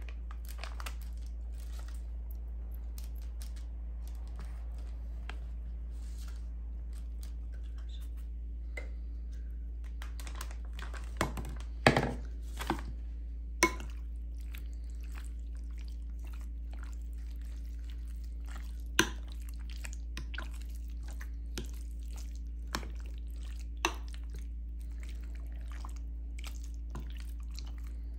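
A metal spoon clinking and scraping against a glass baking dish as raw chicken is mixed with yogurt and spices, with soft wet squishing. The clicks are scattered, with a quick cluster about twelve seconds in, over a steady low hum.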